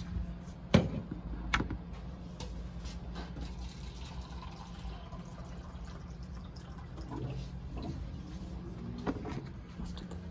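Water running into a cup, over a steady low hum, with two sharp knocks about a second in.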